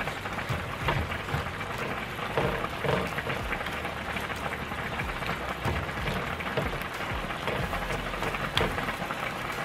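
Shrimp sizzling in butter in a frying pan: a steady crackle, with a few sharp clicks as tongs turn the shrimp.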